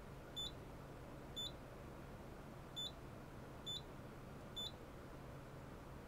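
Short high beeps from a Simplex 4100 fire alarm panel's keypad, five at uneven spacing, as its buttons are pressed to scroll through the list of troubles, over a faint steady low hum.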